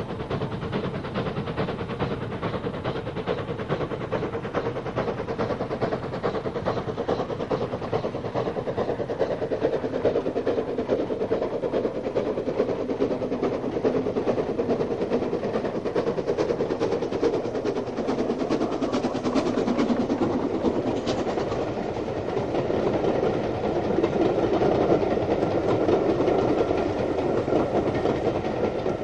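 BR Standard Class 4 4-6-0 steam locomotive working a train, its exhaust beats coming fast and even, growing louder about two-thirds of the way through.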